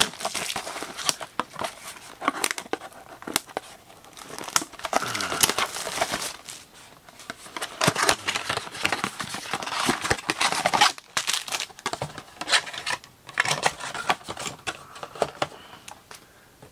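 Plastic shrink wrap crinkling and tearing as a trading-card blaster box is unwrapped by hand. The crackling is dense at first and thins out over the last few seconds.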